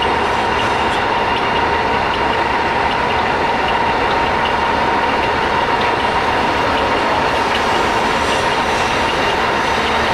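Knuth DL550B lathe running with the spindle gear train engaged: a steady mechanical run with a constant whine and faint regular ticking, a noise the owner takes for abnormal.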